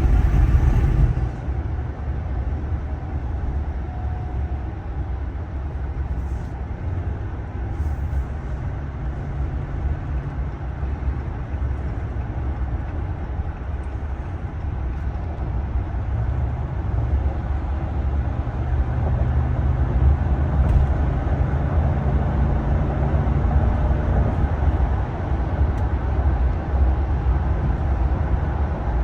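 Cabin noise of a 2023 Ram 1500 Limited pickup on the move: a steady low rumble of road and wind noise with the 5.7-litre HEMI V8 humming underneath. It drops off a second or so in, then slowly builds again past the halfway point.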